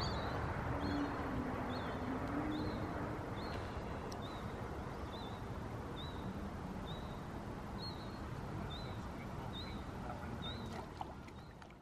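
A bird giving a short, high-pitched call over and over, a little more than once a second, over a steady outdoor background hiss; everything fades out near the end.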